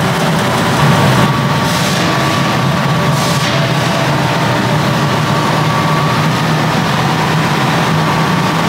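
Steady drone of forge-shop machinery: a continuous low hum with a faint higher whine above it, and brief hissing swells about one and a half and three seconds in.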